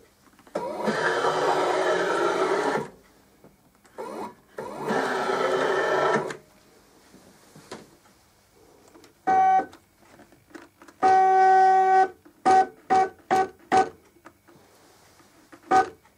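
Epson Stylus R1400 printer, converted to a DIY UV flatbed, powering up and running its start-up routine: two longer stretches of motor whine that shift in pitch, then a series of short steady-pitched motor whines, four of them in quick succession near the end.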